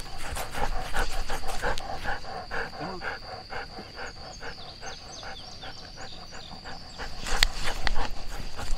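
Dog panting steadily, about two to three breaths a second, fading out after a few seconds. A few sharp clicks near the end.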